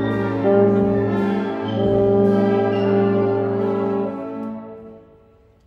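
A band playing slow, sustained brass chords, with a euphonium among the players. The chord fades away from about four seconds in, almost to silence near the end.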